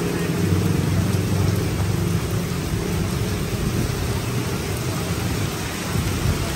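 Heavy rain pouring down on a flooded street and on a tarp awning overhead, a steady hiss with a low rumble underneath.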